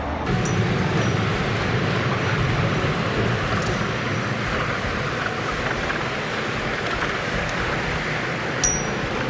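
Steady low rumble with a hiss over it, like a motor vehicle running, with a short sharp click near the end.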